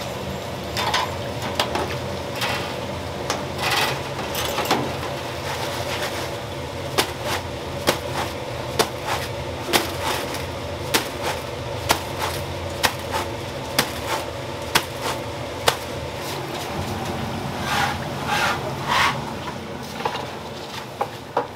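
Sharp metal taps and clinks of tongs and a wire mesh skimmer knocking against a stainless deep fryer, about one a second through the middle stretch, over a steady background hum.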